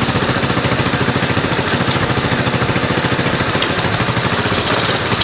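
Honda ATC 200ES three-wheeler's single-cylinder four-stroke engine idling steadily with an even exhaust beat, warming up after a choked start.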